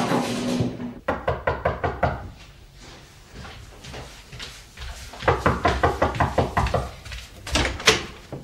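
Quick runs of knocking on a wooden door, about a second in and again from about five seconds, then the door handle and latch clicking as the door is opened near the end.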